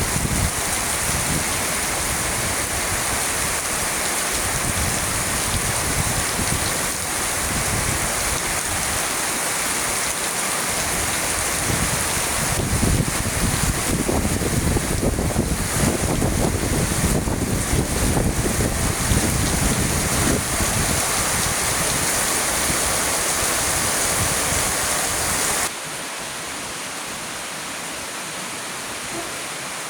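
Heavy rain pouring steadily, with strong wind gusting against the microphone in low rumbles. The sound drops suddenly to a quieter, steadier rain about 26 seconds in.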